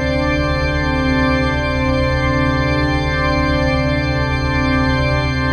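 Marikina River warning siren (a TCL-200) sounding a steady, sustained multi-tone chord with a fast flutter in its low end, holding its pitch with no rise or fall.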